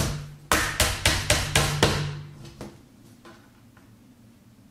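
Hammer driving small nails into the thin back panel of a flat-pack kitchen base cabinet: about eight quick blows in the first two seconds, coming faster toward the end.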